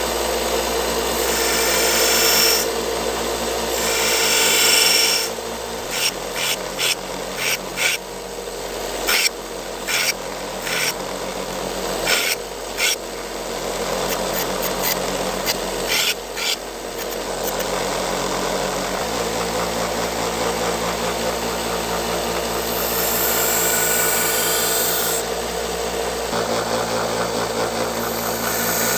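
Knife blade being ground to a new point and edge on a powered grinder: a steady motor hum with bursts of grinding hiss each time the steel meets the abrasive. Through the middle it gives way to a run of short, irregular grinding strokes.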